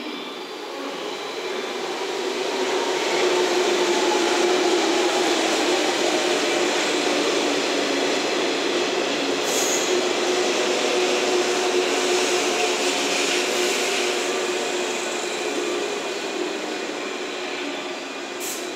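JNR 115 series six-car electric train pulling in alongside a station platform and slowing. Its running noise builds as it draws level, with a whine that falls in pitch, then eases off near the end. Two brief high squeaks, about halfway and near the end.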